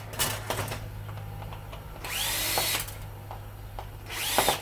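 Cordless drill/driver running in short bursts, each with a whine that rises as it spins up and falls as it stops: screws being backed out of an appliance's casing. One burst comes about two seconds in and lasts under a second; another starts near the end, after a few light clicks early on.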